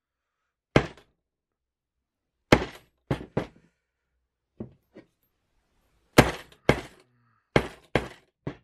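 Club hammer striking the end of a steel bicycle spoke laid on a metal block: about ten sharp metallic blows in uneven groups, with a pause near the middle. The spoke end is being flattened on both sides to make a tension tool for a barrel lock.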